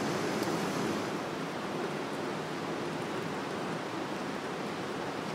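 Canister gas camp stove burner running with a steady rushing hiss while water heats in a small metal pot.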